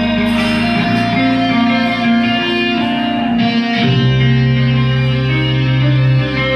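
A live band playing an original song, led by sustained electric guitar chords over bass. The chord changes about halfway through.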